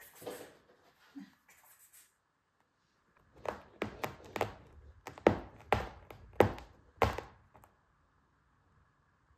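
Cat scratching fabric sofa upholstery with its front claws: a run of about nine sharp scratching strokes, roughly two a second, starting a few seconds in.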